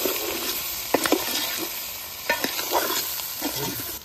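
A ladle stirring goat meat and spices in oil in a large metal pot, with irregular scrapes and knocks against the pot over a steady sizzle of frying oil; the sound drops off abruptly at the end. The powdered spices are being worked into the frying meat.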